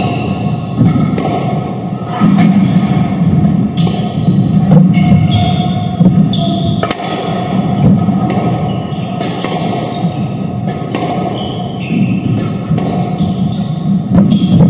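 Squash rally in an enclosed court: the ball smacks off racquets and walls about once a second, each hit followed by a short echo, while court shoes squeak sharply on the wooden floor.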